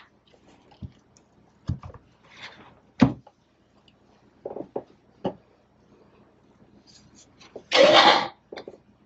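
Light knocks and clicks of plastic pour cups being handled and set on the canvas and table, with a louder rushing noise of about half a second near the end.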